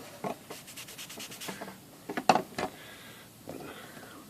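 Quick rubbing strokes on the typewriter's painted case cover, about eight a second for roughly a second, then a couple of knocks as the cover is handled.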